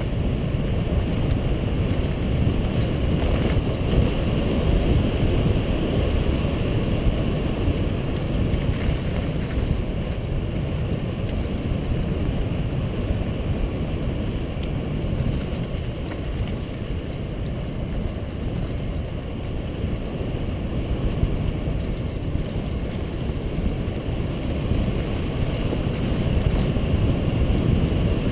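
Steady riding noise of a bike moving fast over a dirt forest trail: wind buffeting the camera microphone mixed with tyre and frame rattle over the bumpy ground.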